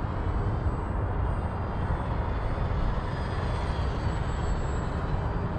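Steady low rumble of wind on the microphone, with the faint wavering whine of an FMS Ranger's electric motor and propeller as the RC plane flies overhead.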